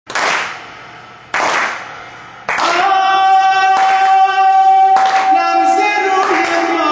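A group clapping in unison about once every second and a quarter. From about two and a half seconds in, a male singer holds one long note over the claps in a devotional Shia song (maddahi).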